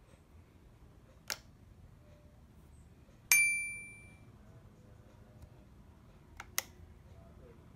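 A faint click, then a single bright bell-like ding that rings out and fades over about a second. Near the end come two small clicks close together, like the rocker switch of a plug-in electric mosquito-killer lamp being pressed.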